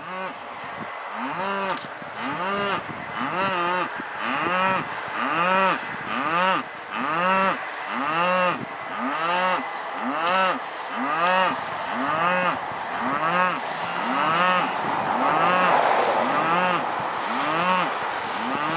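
Steam locomotive 3642, a NSW 36 class 4-6-0, working a train past with its exhaust beating steadily at a little under two beats a second, each beat carrying a tone that rises and falls.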